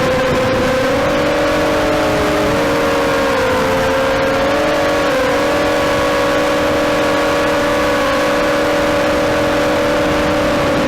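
FPV quadcopter's motors and propellers whining steadily in several tones that drift slightly up and down, over a constant rushing noise.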